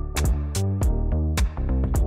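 Background music: an electronic track with a steady beat and a bass line.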